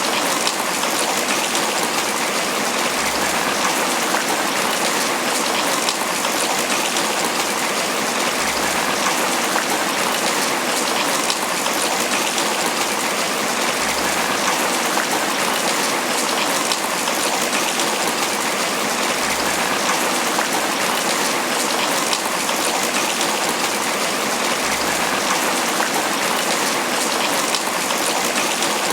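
Tropical rain falling steadily on banana leaves, a dense, even patter of drops.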